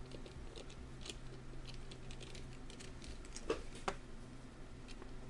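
Light scattered clicks and ticks of a small screw being taken out of a mortise lock's bolt mechanism and its parts handled, with two sharper clicks about three and a half seconds in. A steady low hum runs underneath.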